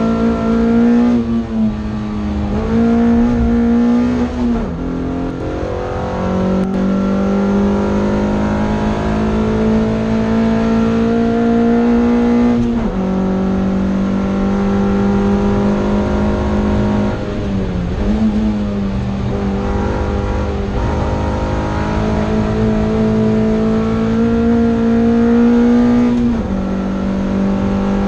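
Toyota MR2 race car's engine running hard at high revs, heard from inside the cabin. The pitch drops abruptly several times as gears change, and dips and recovers once about two-thirds of the way through.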